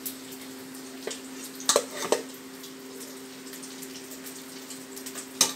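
Metal serving spoon clinking and scraping against the pot and ceramic dish as cooked rice is served out: a few sharp clinks, loudest a little under two seconds in and again near the end, over a steady low hum.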